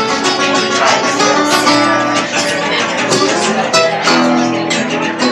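Two acoustic guitars playing a tune together live, with quick picked notes over chords.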